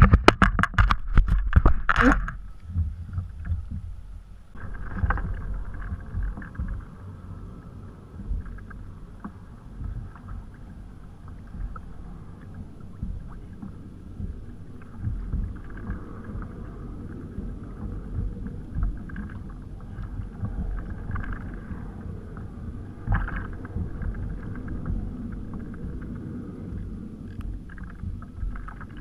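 Water sloshing and lapping against a plastic fishing kayak's hull, a low, uneven rumble. A quick run of sharp clicks and knocks comes in the first two seconds.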